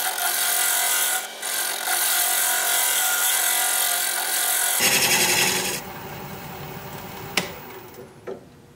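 A scraper shear scraping the inside of a hard, dense red mallee burl bowl spinning on a wood lathe: a loud, steady scraping with ringing tones. About six seconds in the scraping drops away, leaving the lathe running more quietly, with one sharp click near the end.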